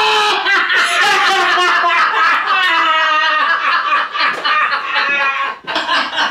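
Two men laughing loudly together. The laughter starts suddenly, runs for about five seconds and breaks into a few last chuckles near the end.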